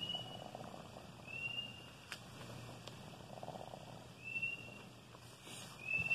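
Chickens resting in a cargo truck, faint and settled: a soft low purring murmur with four short high peeps spread through.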